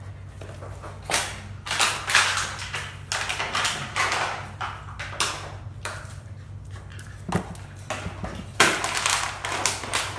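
A corgi biting and carrying a plastic water bottle: irregular crinkling and crackling of the plastic, in bursts, over a steady low hum.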